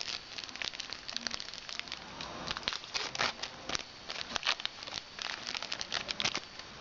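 Trading cards and a foil pack wrapper being handled: irregular crinkling and light clicks as the cards are flipped through.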